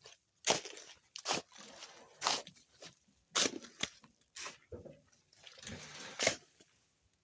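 Gritty crunching scrapes, about one a second and irregular, typical of a hand tool working a sand-and-cement mix.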